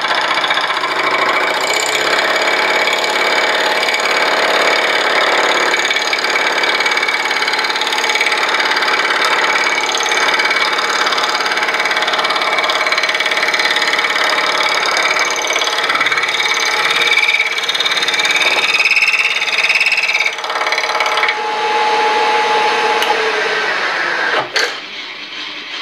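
Milling machine spindle turning a fly cutter as it cuts a 2-inch circle into a metal plate: a steady cutting noise, with a higher squeal creeping in for a few seconds about two-thirds through. The cut falls away just before the end.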